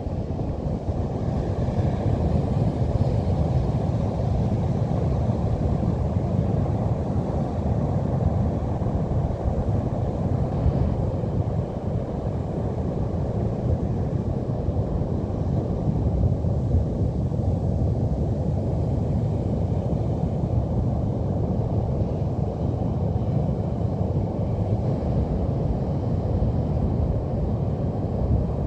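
Steady low rumbling noise of Pacific Ocean surf mixed with wind buffeting the microphone, with no distinct events.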